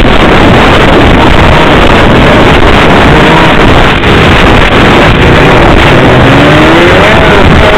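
Snowmobile engine running under way, loud and continuous, with its pitch rising about six seconds in as it speeds up; heavy wind buffets the microphone throughout.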